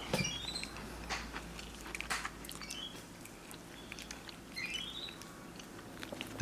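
Capuchin monkey chewing and smacking on a ripe, mushy mango: a scatter of small wet clicks. Twice there is a short run of quick rising chirps, once just after the start and once about five seconds in.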